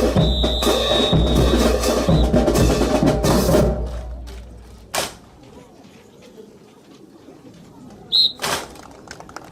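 Drums beating a cadence of bass and snare drum strokes with wood-block-like clicks, which stops about four seconds in. A single sharp knock follows about a second later, and a short high tone sounds near the end.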